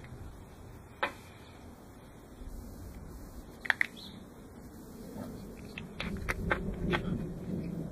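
Small handling clicks and taps of a plastic bottle cap being picked clean of drill shavings and set down on a glass tabletop: a single click about a second in, a loud double click a little before the middle, and a cluster of taps near the end, over a low background rumble.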